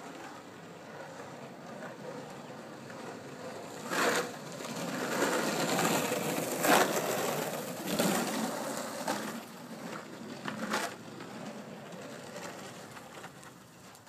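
Carver surfskate rolling over coarse asphalt, a gritty rumble that swells from about four seconds in as the board passes close by and fades after about eleven seconds, with several sharp clacks along the way.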